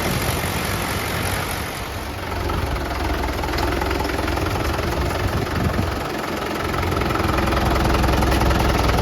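Heavy diesel engine of earthmoving farm machinery running steadily, swelling slightly toward the end.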